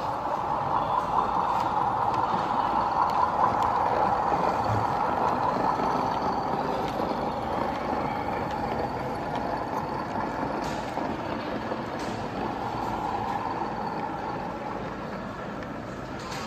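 Model Class 20 diesel locomotive running past with a train of coal wagons. Its running sound is loudest a few seconds in and fades steadily as the train draws away.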